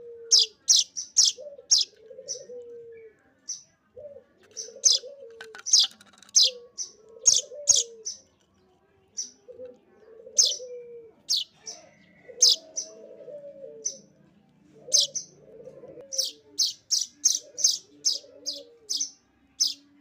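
Streaked weaver chick giving sharp, high begging chirps in quick runs of several at a time while being hand-fed.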